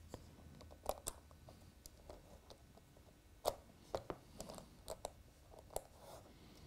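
Light clicks and taps of a model locomotive chassis being pressed onto a rolling road and its wheels lined up on the rollers, the sharpest click about three and a half seconds in.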